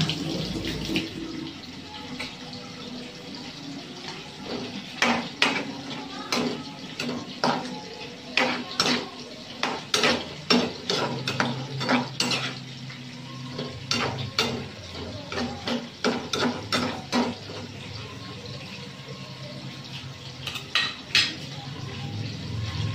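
A metal spatula scrapes and knocks against a metal pan, stirring string beans in coconut milk. The clacks come in irregular clusters through the middle stretch and return briefly near the end.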